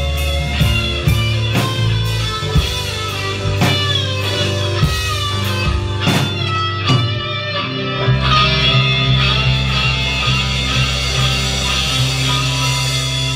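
Live rock instrumental: an electric guitar plays a melody over a drum kit, with sharp drum hits about twice a second. About eight seconds in, the guitar moves to long held notes and the drum hits thin out.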